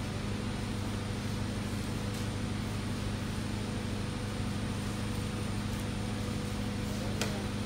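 Steady low mechanical hum with a faint higher tone held over it, and one short sharp click near the end.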